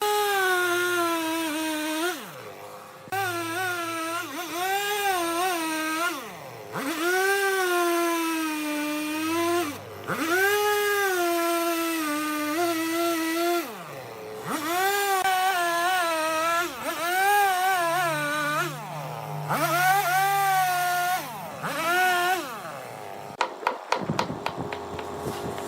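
A power tool's motor revving and dipping in pitch over and over, in spells of a few seconds, the way a cutting tool slows under load as it bites into wood. A cluster of sharp clicks comes near the end.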